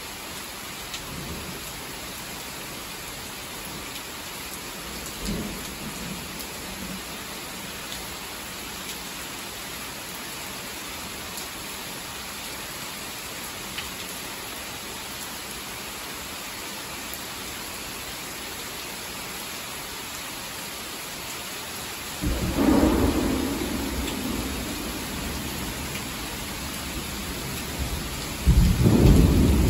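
Heavy rain falling steadily. A loud thunderclap breaks in sharply about three quarters of the way through and rumbles off over a few seconds, and a second loud clap hits near the end.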